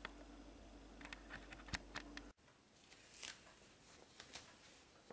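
Near silence: faint room tone with a low steady hum and a few small sharp clicks. The hum cuts off abruptly about two seconds in, leaving an even quieter background with a couple of faint ticks.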